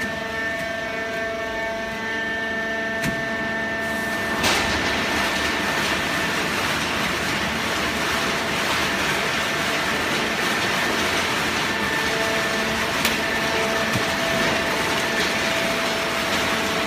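Fully automatic horizontal baling press running on scrap newspaper: a steady machine hum with whining tones. About four and a half seconds in, a sharp click comes and the sound turns into a louder, even rushing noise.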